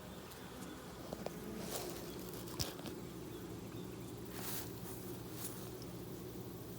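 Honey bee colony in an opened hive buzzing in a loud, steady hum, the sound of a colony left without its queen that has not yet quieted after her return. A few faint clicks come through near the beginning and about two and a half seconds in.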